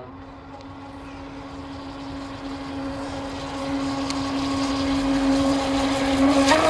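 Homemade radio-controlled boat's motor running with a steady whine, growing gradually louder.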